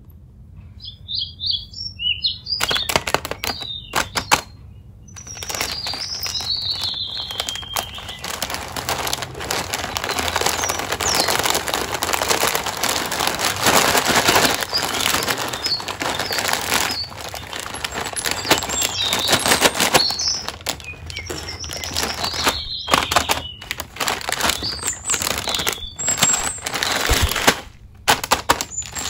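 A sealed metallised-plastic snack pouch crinkling and rustling as hands press, rub and flip it, in irregular bursts with short pauses.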